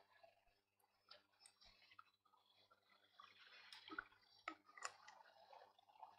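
Near silence over a low steady hum, broken by faint scattered clicks and small handling noises from a plastic water bottle being drunk from, most of them between about four and five seconds in.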